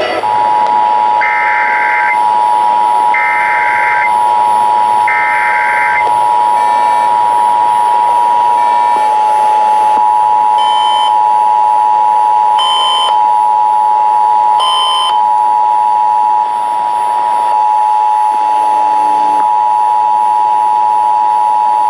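Emergency Alert System attention signal: the harsh two-tone alert tone held steady, with three short buzzy bursts of the digital SAME header data over it in the first six seconds.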